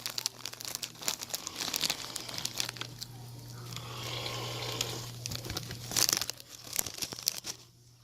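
Crinkly snack bag being handled, a dense run of irregular crackles and rustles, over a low steady hum.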